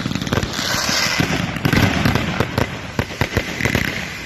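Fireworks finale barrage: many shell bursts and bangs firing in rapid, overlapping succession, with a stretch of high hissing about a second in.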